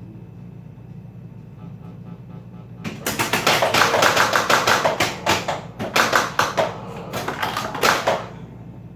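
Flash Gordon pinball machine in play: a steady low hum, then from about three seconds in a rapid clatter of mechanical clacks and knocks from the ball, flippers and solenoids, lasting about five seconds.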